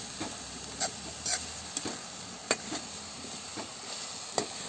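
Neem flowers with onion and tomato sizzling in oil in a steel kadai while a flat steel spatula stirs them. Sharp scrapes of the spatula against the pan come irregularly, about every half second, over a steady sizzle.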